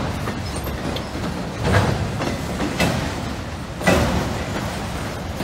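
Empty autorack freight cars rolling past with a steady rumble. The wheels clack sharply three times, about a second apart, starting a little under two seconds in.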